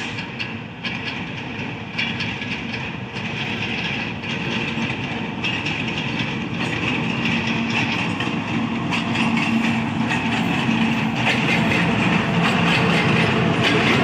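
GEU-40 diesel locomotive hauling a loaded coal train slowly, its engine running steadily and growing louder as it approaches, with the wheels clicking over the rail joints.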